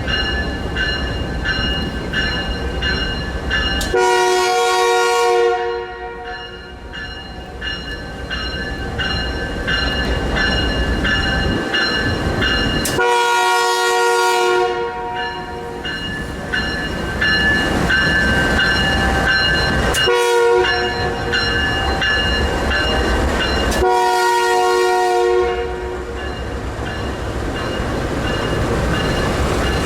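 Canadian Pacific diesel freight locomotive's horn sounding the grade-crossing pattern: two long blasts, one short, one long. Underneath is the steady low rumble of the train running.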